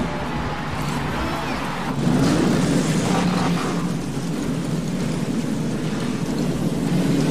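Racing engines running in a loud, rumbling drone, whose pitch rises and falls about two seconds in.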